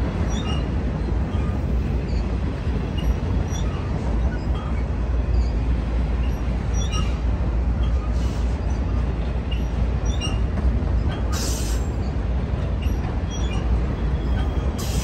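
Autorack freight cars rolling past on the rails, a steady low rumble of the wheels on the track.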